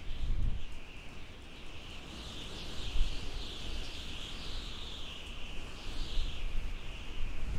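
Howling desert wind: a high whistle that wavers up and down in pitch over a low, gusty rumble, with stronger gusts near the start and about three seconds in.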